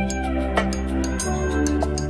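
Background music: sustained soft chords that change about a second in, over a steady light beat.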